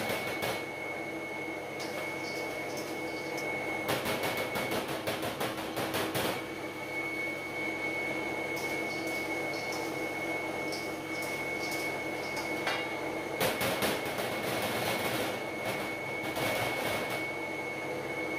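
Electric stainless-steel peanut butter grinding mill running steadily as it grinds peanuts, a constant hum with a high whine. Several bursts of clicking and clatter, typical of a metal spoon against a steel bowl and glass jars, come over it.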